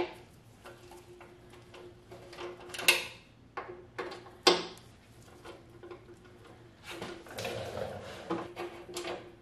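Metal hand tools clicking and clinking on a motorcycle's front fork as bolts are worked loose with a ratchet: scattered sharp metallic clicks, two of them loudest about three and four and a half seconds in, and a quicker run of clicking near the end.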